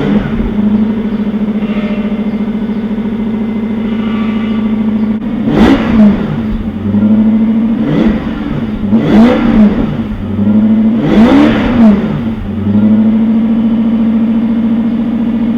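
Lexus SC400's 4.0-litre V8 idling steadily, with a few throttle blips in the middle, each rising and falling in pitch. It runs with the catalytic converters deleted but the stock exhaust and muffler still on.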